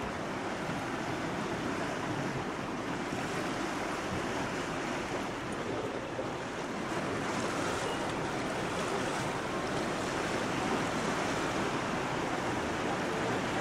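Steady rush of lake water along the hull of a moving steam yacht, mixed with wind on the microphone.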